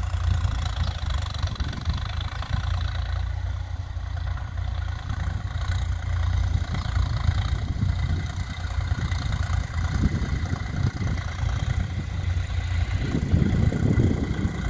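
A VST Viraaj XT 9045 DI tractor's 45 HP diesel engine running steadily while pulling a tillage implement through the soil. It grows louder near the end.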